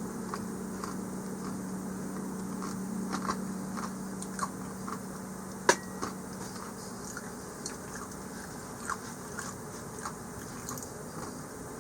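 A person biting into and chewing crispy fried chicken, the crust crunching in scattered crackles, with one louder crunch a little before the halfway mark. A steady low hum runs underneath.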